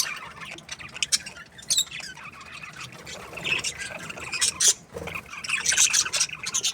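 A flock of budgerigars in an aviary chattering, with many overlapping chirps and squawks.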